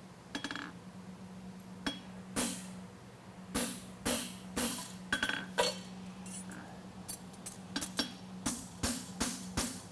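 Hammer striking steel on an anvil in a series of ringing blows, a few spaced ones at first, then quicker and steadier from about three and a half seconds in: a farrier driving a punch into a concave horseshoe to make its toe nail holes.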